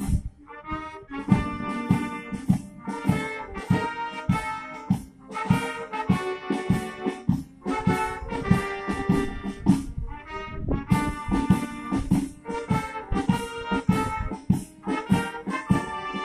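Brass band playing: trumpets and trombones carrying the tune over a steady drum beat.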